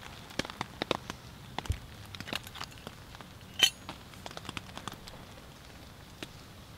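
Irregular light ticks and pops from rain pattering on the tent and the wood stove fire crackling, over a faint hiss. About three and a half seconds in, a metal mug is set down on a cutting board with a short clink, the loudest sound.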